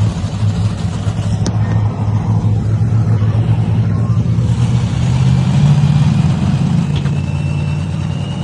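Monster truck engine running loud with a deep rumble, revving up about five seconds in, with a thin high whine rising over the second half.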